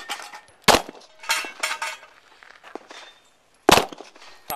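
9mm Glock pistol shots fired at steel targets: one right at the start and another under a second in, a pause of nearly three seconds, then two more near the end. Steel plates clang and ring after the early shots.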